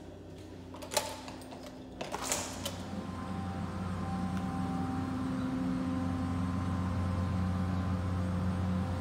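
A door is unlatched and pushed open with a couple of sharp clicks and a rattle, then a steady low machine hum with a faint thin whine grows louder and holds.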